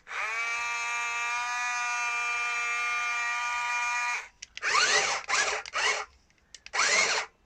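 Small electric motor of a radio-controlled toy tank whining at a steady high pitch. It cuts out briefly, spins back up and runs until about four seconds in, followed by a few short surges of the motor.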